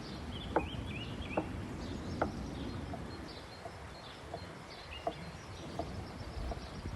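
Outdoor ambience: small birds chirping faintly, with a few sharp light ticks about once a second over a steady low background rumble.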